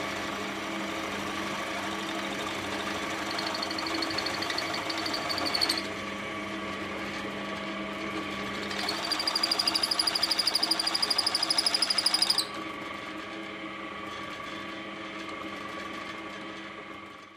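Drill press motor running steadily while a twist bit bores into a jarrah hardwood end cap. Twice the bit gives a high squeal that pulses rapidly as it cuts, first for about two and a half seconds and then for about three and a half.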